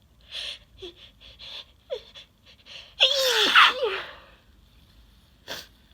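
A person's sneeze a little after halfway, a loud burst with a voiced cry sliding down in pitch. It comes after a run of short, catching breaths as the sneeze builds, and is followed near the end by one short breath.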